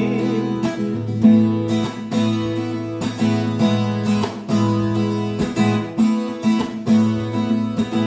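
Acoustic guitar strumming chords in a steady rhythm, an instrumental break in a song without singing.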